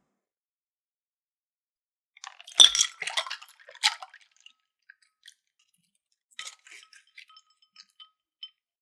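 Ice water and ice cubes poured into a ceramic bowl: a burst of clinking and splashing about two to four seconds in. Near the end there are faint splashes and light clinks with a brief ringing from the bowl as gelatin is pressed into the water to soak.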